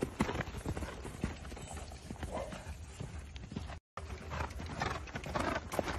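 Horse's hooves beating on sandy ground at a canter under a rider, a quick irregular run of dull thuds, broken by a split-second dropout a little past the middle.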